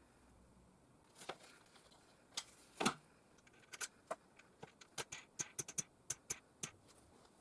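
A series of light, irregular clicks and taps as small workshop parts are handled and set down, with a louder double knock about three seconds in.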